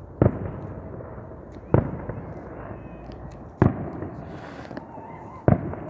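Aerial fireworks going off: four sharp bangs about two seconds apart, each trailing off in an echo.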